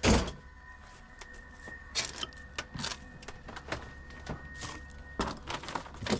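A loud knock right at the start, then a string of irregular clicks and clanks as small scrap metal parts are handled and sorted on a workbench, over a low steady hum.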